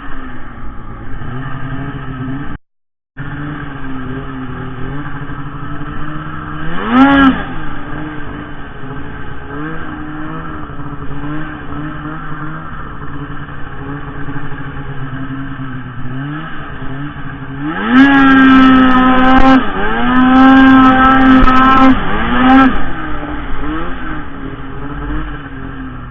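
Arctic Cat M8000 snowmobile's two-stroke engine running under load. It revs up sharply once about seven seconds in, then is held at high revs for several seconds later on, with a short dip in the middle.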